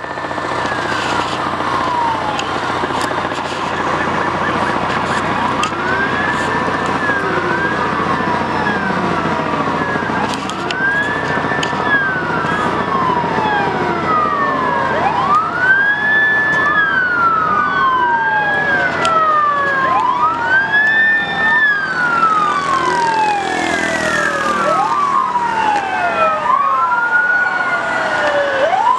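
Several police car sirens wailing out of step with one another, each rising and falling in pitch over a few seconds. More of them join and they grow a little louder as the patrol cars approach.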